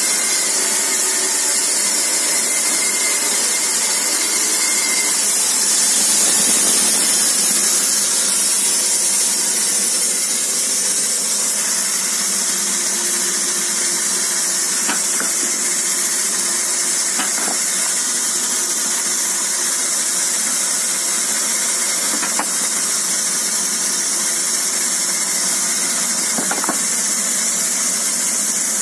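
Homemade horizontal band sawmill running steadily, a continuous machine noise with a strong high hiss.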